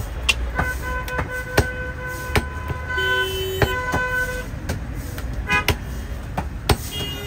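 Sharp chops of a butcher's cleaver cutting goat meat on a wooden log block, one every second or so. Vehicle horns sound over them, one held for about four seconds.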